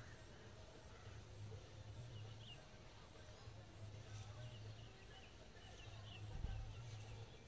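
Quiet outdoor ambience: a faint low hum with scattered faint high chirps, and one dull bump about six and a half seconds in.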